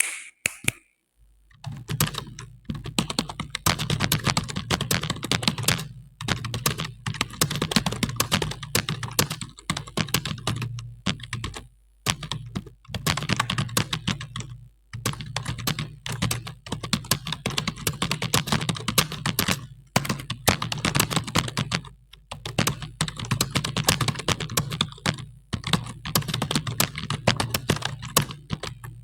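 Fast touch-typing on a computer keyboard, a dense run of key clicks at about 73 words per minute. It starts about a second and a half in and is broken by brief pauses every few seconds.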